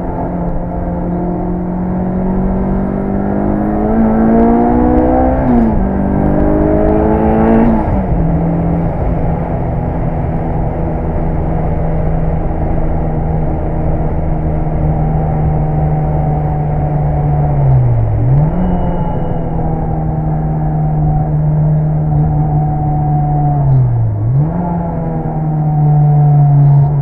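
Mitsubishi Lancer Evolution VI Tommi Makinen Edition's tuned turbocharged four-cylinder engine running hard. It revs up twice, dropping sharply at each gear change, in the first eight seconds, then holds steady revs with two brief dips later on.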